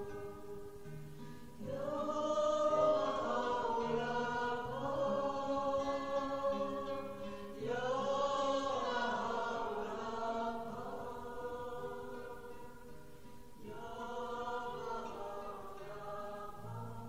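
Choral chanting with voices singing long held notes in slow phrases. A new phrase swells in about every six seconds over a steady sustained tone.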